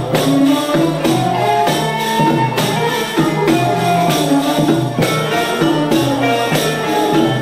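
Turkish classical music ensemble playing an instrumental passage in makam hicazkar, a plucked and bowed melody over hand percussion keeping a steady beat; no singing yet.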